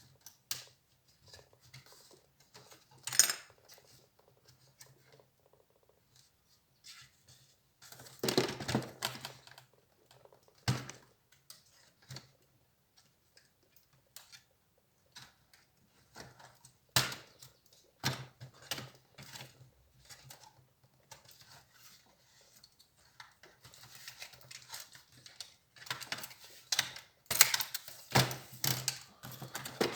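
Irregular clicks, taps and short scrapes of small plastic and metal laptop parts and tools being handled while an HP Compaq 6910p laptop is taken apart. The sounds come in busier clusters about eight seconds in and near the end.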